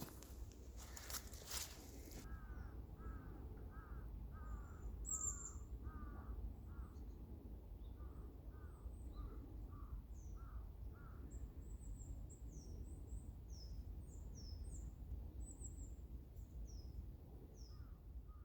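Wild birds calling: a run of short, harsh calls repeated about twice a second from about two seconds in until about halfway, with high, thin chirps of small birds going on nearly to the end. A couple of brief rustles come at the start.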